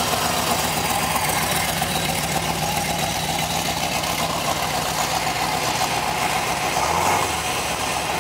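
A car engine idling steadily, with a brief deeper rumble about seven seconds in.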